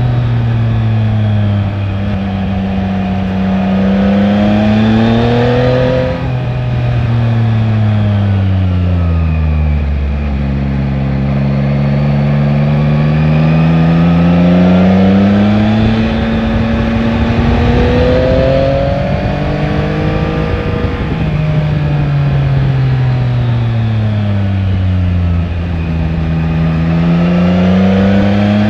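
Yamaha Tracer 9 GT's 890 cc inline three-cylinder engine heard from onboard while riding, its pitch repeatedly climbing under acceleration and sinking as the throttle closes, with a quick drop in pitch about six seconds in. A steady rush of noise runs under it.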